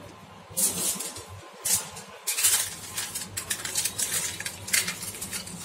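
Aluminium foil crinkling in repeated short bursts as it is pressed and crimped around the rim of a small steel tumbler.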